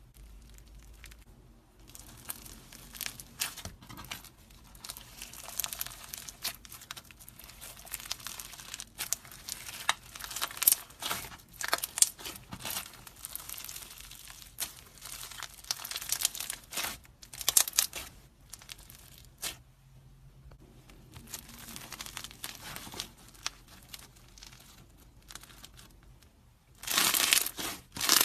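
Slime being squeezed and stretched by hand, giving off a run of small clicks and crinkly noises in irregular bursts, with a louder stretch near the end.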